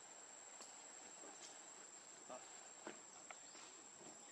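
Near silence: a faint, steady, high-pitched insect trill from crickets or similar insects, with a few faint scattered clicks.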